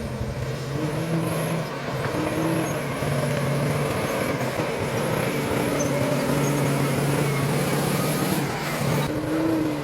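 Bulldozer's diesel engine running steadily, its pitch rising and falling slightly as the throttle shifts.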